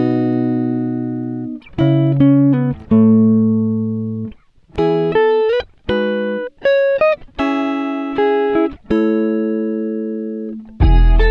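Background music: a plucked guitar playing a slow melody of ringing notes and chords, each fading away before the next phrase, with a few short slides between notes.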